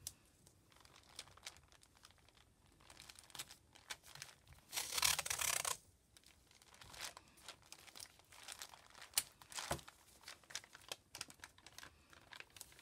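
Washi tape being pulled and handled over notebook paper: a loud peeling, tearing sound about five seconds in that lasts about a second, among soft paper rustles and small clicks.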